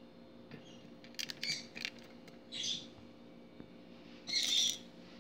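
Small hard items, cloves, clicking as they are dropped into a glass bottle, a quick run of light clicks about a second in. Two short, high-pitched chirps come near the middle and near the end, the second the loudest.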